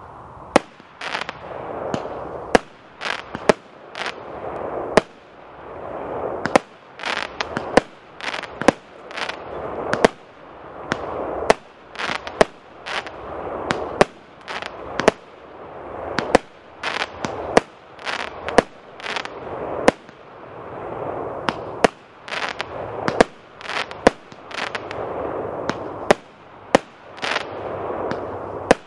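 SB-58 'Maskarad' fireworks cake, a 50-shot battery of 20, 30 and 50 calibre tubes, firing in rapid succession: sharp bangs less than a second apart, with hissing rushes between them.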